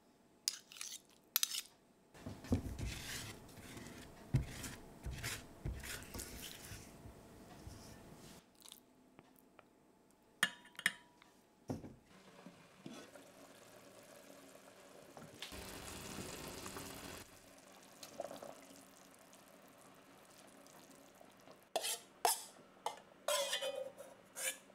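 A metal spoon clinks and scrapes against a stainless steel bowl while soft roasted butternut squash flesh drops into it with dull thuds. Near the end come several sharp clinks as the bowl is tipped against the pot.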